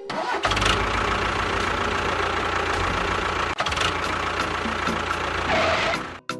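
An engine-like motor running steadily with a low rhythmic throb, cutting off abruptly near the end.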